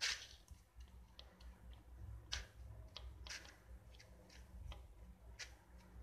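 Metal spoon clicking and scraping against an aluminium baking tray while spreading tomato sauce on mini pizza bases: scattered light taps, the sharpest at the very start.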